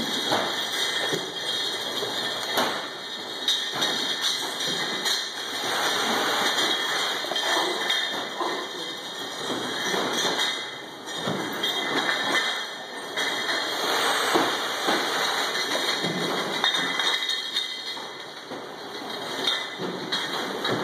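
An automatic bottle labelling machine running, with frequent irregular knocks and clinks of glass bottles moving along its conveyor.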